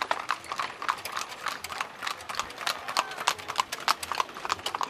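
Carriage horses' hooves clip-clopping on an asphalt road, an uneven stream of many sharp hoof strikes from several horses passing close by.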